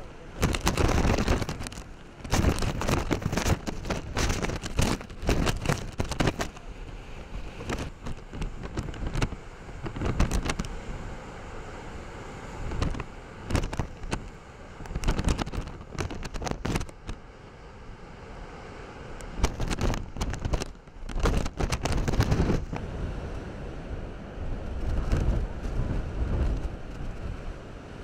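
Typhoon-force wind buffeting the microphone in irregular gusts, over heavy surf breaking against sea cliffs.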